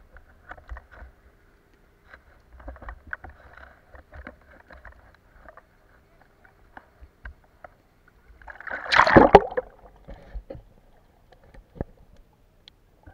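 Shallow seawater slapping and ticking lightly against a handheld waterproof camera at the surface, then a loud splash and gurgle about nine seconds in as the camera dips under. A few faint muffled clicks follow under water.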